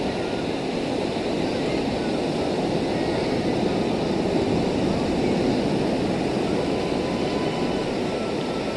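Steady rush of surf and sea wind, with the faint high whine of a BetaFPV Pavo20 FPV drone's motors flying over the rocks.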